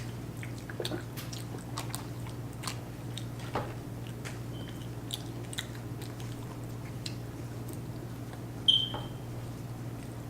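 Chewing and biting on fast food close to the microphone: scattered small wet clicks and smacks over a steady low hum. Near the end a brief high-pitched squeak stands out as the loudest sound.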